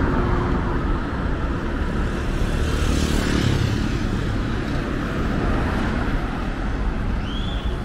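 Road traffic passing on a city street: cars and a motorcycle driving by over a steady low rumble, with one louder pass about three seconds in. A short high chirp sounds near the end.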